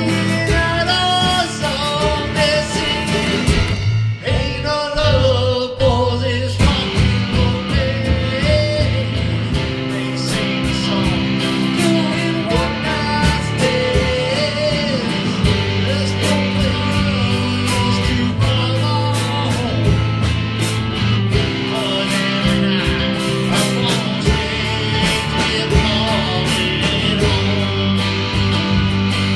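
Rock song with singing over guitar, bass and a steady drum beat.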